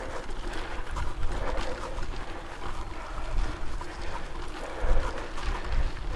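Mountain bike ridden fast over a dry dirt singletrack: tyre noise on the dirt and a constant light rattling and clicking of the bike over bumps, with wind buffeting the microphone. There are louder jolts about five seconds in.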